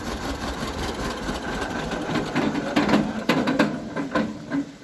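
Two-cylinder John Deere tractor engine running with an even, rapid beat, fading near the end.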